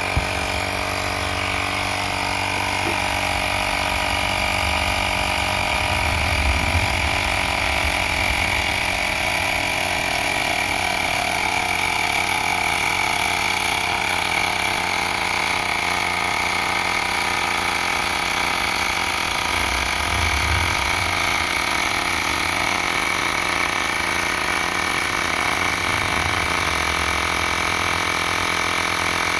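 Xiaomi portable electric air compressor running, fairly loud, as it pumps a fully deflated motorcycle tyre up from zero toward 28 PSI. Its motor and pump give a steady buzzing drone with a high whine on top.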